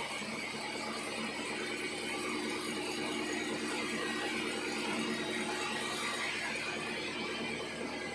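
Sawmill machinery running steadily while sawing acacia logs: a motor hum under a continuous mechanical rattle and noise.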